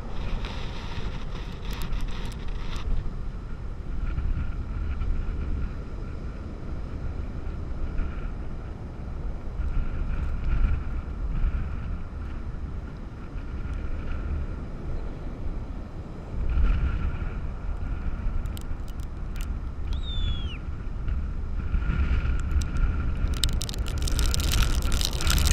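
Strong, gusty storm wind buffeting the microphone in deep rumbling surges, over surf breaking on the beach. Near the end the wind noise turns harsher and louder.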